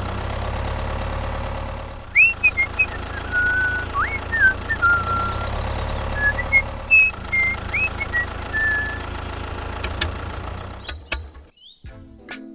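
Small engine idling steadily. From about two seconds in, a series of short whistled notes sliding up and down plays over it. The engine cuts out near the end, leaving a few clicks.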